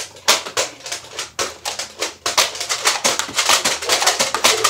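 Plastic Nerf blasters clicking and clattering as they are handled and fired. There are a few separate clicks at first, then a fast run of clicks from about halfway in.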